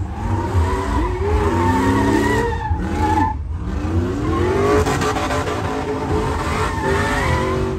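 Pickup truck drifting in circles. Its engine revs up and down and its tires squeal on the asphalt. The squeal breaks off briefly about three seconds in and then picks up again.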